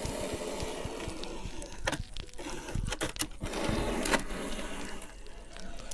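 Hot soldering iron tip melting into styrofoam, a steady hissing crackle broken by irregular sharp clicks and pops.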